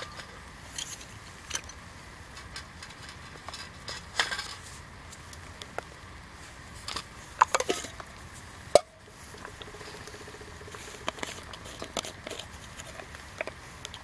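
Metal camp mug and its lid being handled: light clinks and taps as the lid comes off and is set down, a short ringing clink a little past the middle and a sharp knock soon after, over a faint steady hiss.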